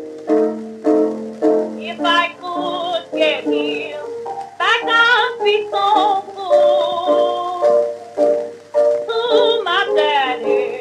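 Restored 1922 blues 78 rpm record playing: a woman singing over piano accompaniment. The piano plays alone for about the first two seconds, then her voice comes in with a wavering, held tone.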